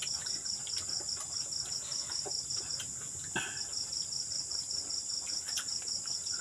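Night insects calling: a steady high trill under a high chirp pulsing about five times a second, which breaks off briefly about halfway through. Faint scattered clicks sound through it.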